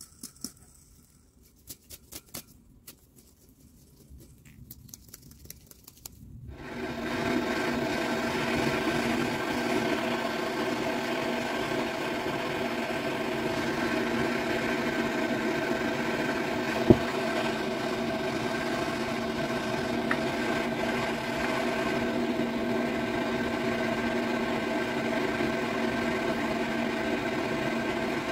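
Light clicks, then about six seconds in a Bosch Maxx 6 washing machine starts up and runs with a loud, steady hum made of several fixed tones, holding an even level with no rise or fall in pitch. The owner puts this kind of high-speed noise down to a broken drum; the motor bearings are new and the drum bearings are good.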